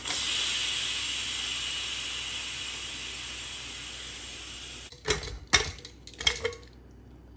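Pressure cooker venting: steam hisses out steadily under the lifted whistle weight, the pressure being released by hand. The hiss fades slowly and stops suddenly about five seconds in, followed by a few sharp metal clanks.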